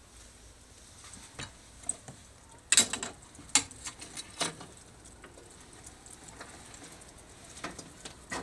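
Scattered light clicks and taps at irregular intervals over a faint hiss, the loudest a quick cluster about three seconds in.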